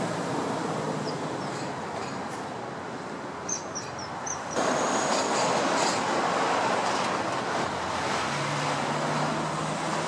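Steady rumble of distant city traffic, with a few short high chirps just before the middle. The noise steps up abruptly about halfway through, and a low steady hum joins near the end.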